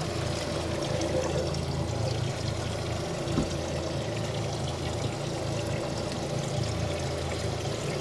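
Steady trickling, pouring water with a low steady hum beneath it, and one soft knock about three and a half seconds in.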